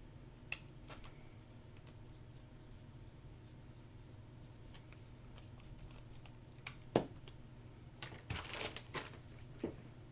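Quiet handling at a table: scattered small clicks and taps, a sharp tap about seven seconds in, and a spell of scratchy rustling near the end, over a low steady hum.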